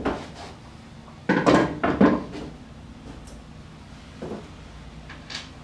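Tools and engine parts being handled and set down on a workbench: a cluster of clattering knocks about a second and a half in, then two fainter knocks later.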